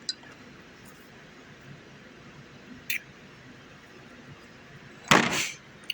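A tool case and bits being handled: a single light click about three seconds in, then a short loud clatter near the end, over quiet room tone.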